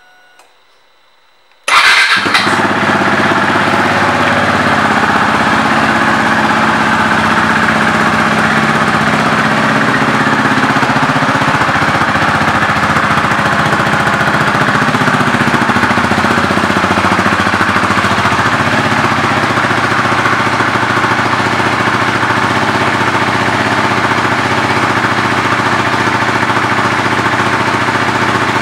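2019 KTM RC 390's single-cylinder engine starting about two seconds in, then idling steadily through an aftermarket exhaust.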